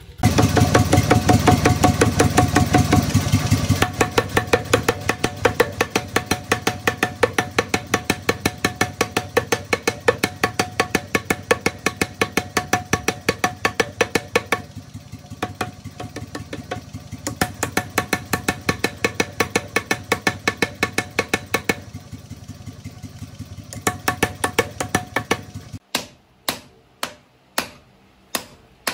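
Rapid, evenly spaced hammer blows on steel being forged, about six a second, with a motor running steadily underneath. The blows are loudest in the first few seconds. Near the end the fast pounding stops and a few single blows follow, about two a second.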